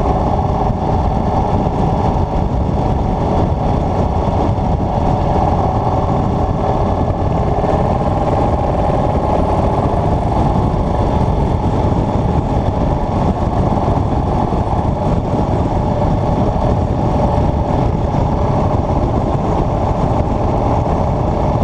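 Motorcycle cruising at a steady highway speed: the engine runs evenly under the rush of wind and road noise, with no change in pace throughout.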